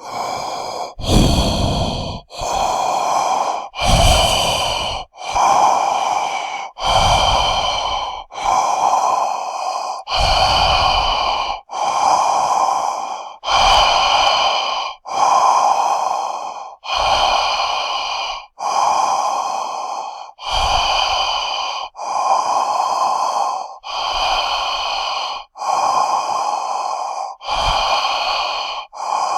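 Loud, heavy breathing sound effect made to sound like a giant monster: long in- and out-breaths follow one another in an even rhythm, about one every second and a half to two seconds, each with a hollow ringing tone.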